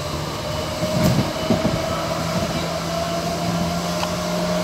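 Hamburg U-Bahn DT3-E train running along the track, heard from the driver's cab: a steady electric whine from the drive over the rolling noise of the wheels, with a few knocks of the wheels over the rails about a second in.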